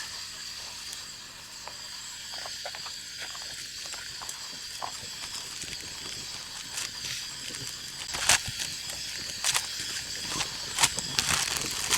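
Knife work and handling of a small whitefish being cut in half: scattered light clicks and taps, with a few sharper clicks in the last few seconds, over a steady hiss.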